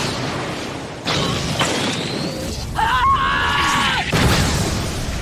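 Cartoon fire-attack sound effect: a rushing blast of flame that jumps in level about a second in. A shrill pitched cry sounds over it for about a second near the middle.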